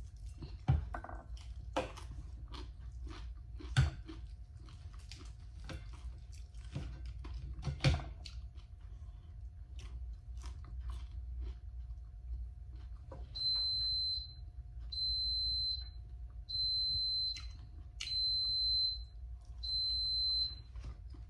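Chewing and biting on roasted chicken, with sharp clicks and crunches through the first eight seconds. Later an electronic beeper sounds five times, each beep just under a second long and about one and a half seconds apart, over a faint steady hum.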